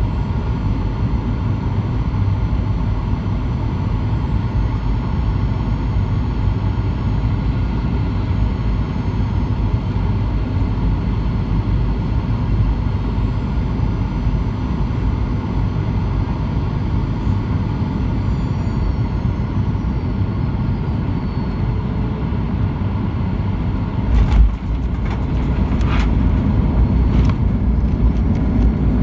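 Steady roar and whine of a Boeing 737-900ER's CFM56-7B engines and slipstream heard inside the cabin on final approach; the whine falls in pitch as the engines are throttled back. Near the end a sharp thump and rattle, the main wheels touching down, after which the roar grows louder.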